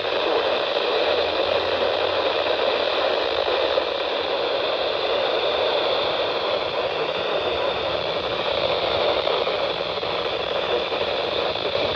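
Steady static hiss from a radio receiver tuned to a NOAA weather radio frequency, with no voice on the channel.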